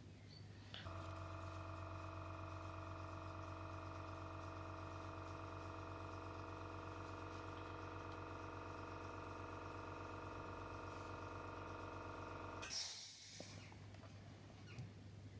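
A steady electrical hum made of several pitched tones starts abruptly about a second in and cuts off suddenly near the end, with a brief hiss as it stops.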